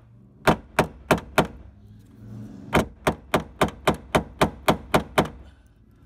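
A hammer tapping on metal tools at the seized tailgate strut bolt: sharp taps, four, then after a short pause a steady run of about ten, roughly three a second.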